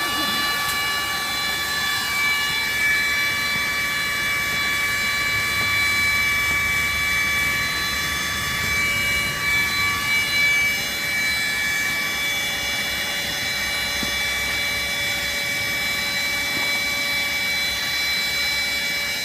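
Electric air pump running steadily with a constant whine, inflating an air tent; one of its tones drops out about halfway through.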